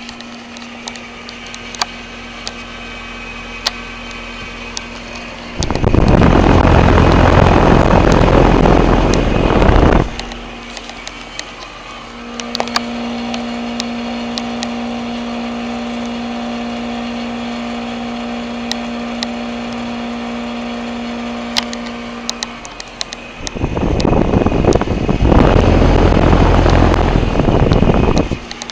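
Goodman and Nordyne HVAC units running with a steady electrical hum. Twice, for about four to five seconds each, a loud rush of air drowns the hum: once from about six seconds in, and again near the end.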